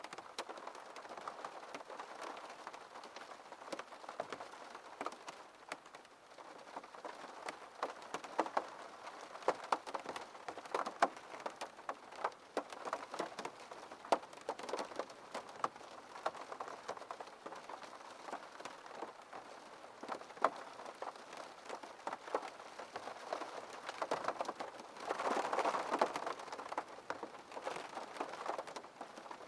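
Rain falling on a window pane: a steady patter with many distinct drop taps, briefly louder and denser near the end.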